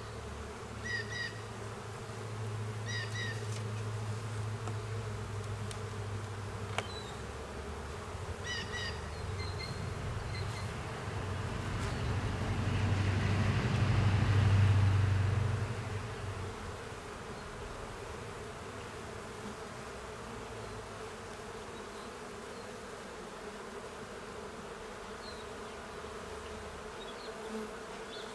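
Honeybees buzzing around an opened hive: a steady low hum that swells loudest about halfway through, then settles back.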